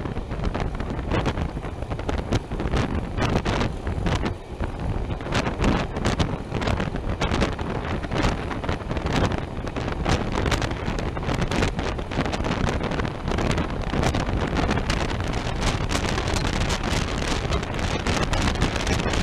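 Wind buffeting a microphone held out of a train window at speed, in irregular gusts over the steady running noise of the train.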